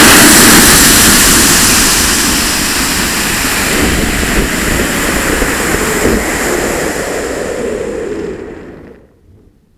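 Rushing roar on board an Estes Ventris model rocket climbing on an AeroTech H97J motor, heard from a camera on the airframe. Loud at first, it fades steadily over several seconds and dies away about nine seconds in as the rocket slows toward apogee.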